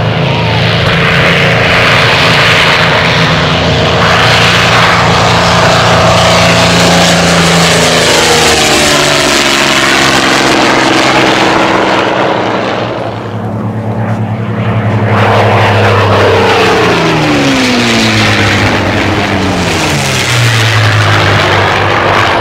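Yak-3 fighters' V12 piston engines at high power, first a steady drone during the takeoff run, then two low passes whose pitch drops as the aircraft sweep by.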